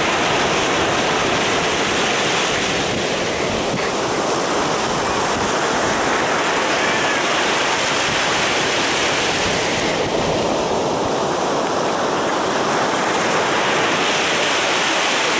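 Heavy surf of a rough Black Sea breaking and washing up a sandy beach: a continuous rushing of waves that swells and eases over a few seconds at a time.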